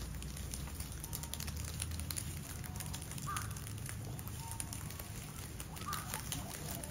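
A group of guinea pigs munching and tearing oak leaves: a dense crackle of small crunching clicks and leaf rustling, with a few faint short squeaks about three and six seconds in.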